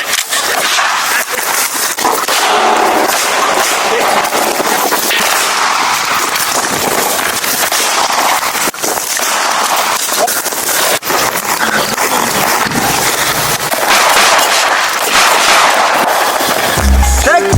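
Gunfire in a sustained shootout, many sharp shots coming close together.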